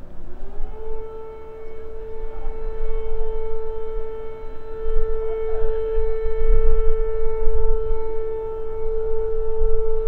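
Civil defence air raid siren winding up in pitch during the first second, then holding one steady wail. A low rumble runs underneath, strongest in the middle.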